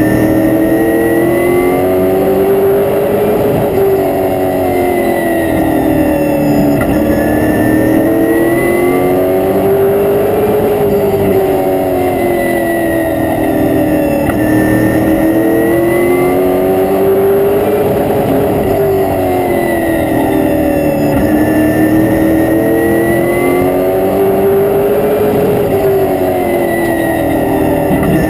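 Race car's engine heard from inside the cockpit while lapping an oval track, its pitch climbing on the straights and dropping off into the turns in a regular, repeating cycle.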